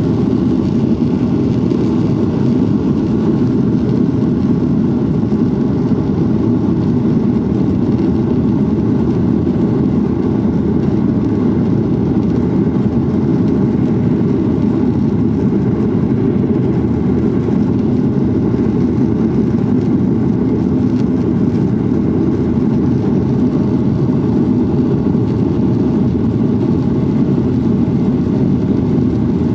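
Airliner's jet engines at takeoff thrust, heard from inside the passenger cabin: a loud, steady, low rumble through the takeoff run and climb-out.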